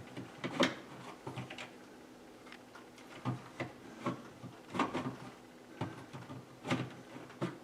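Irregular clicks and knocks, about a dozen spread unevenly, from hands working on a hard-wired smoke detector's mounting plate and wiring.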